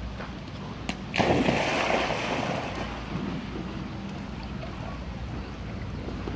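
A loud splash about a second in as a dog lands in the pool water, dying away over a second or so. Steady wind rumble on the microphone underneath.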